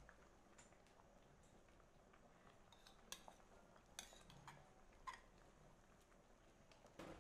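Light clinks of a metal ladle and a ceramic bowl against an aluminium stockpot, four soft knocks spread a second or so apart, over near silence.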